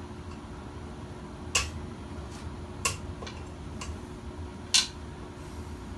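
Chain hoist ratchet being worked a click at a time: about five sharp metallic clicks, irregularly spaced, as the generator stator is inched into position on the hoist.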